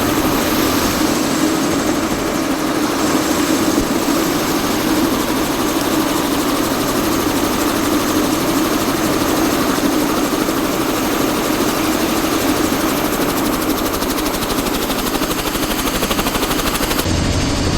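Helicopter running steadily, a loud dense noise with a fast, even rotor pulse through it. Near the end the sound shifts, the hiss dropping and a lower rumble coming up.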